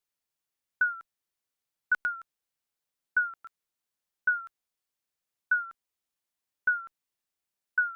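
Digital countdown timer beeping: a short electronic beep about once a second, seven in all, each dipping slightly in pitch, one of them led by a sharp click.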